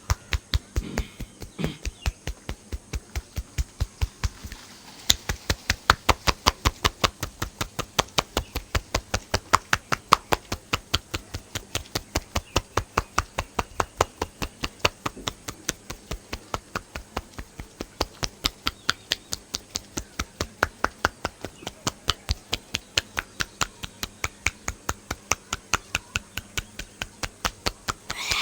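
Hands striking in a quick percussive massage, a steady run of sharp slaps or taps about four a second, lighter for the first few seconds and firmer from about five seconds in.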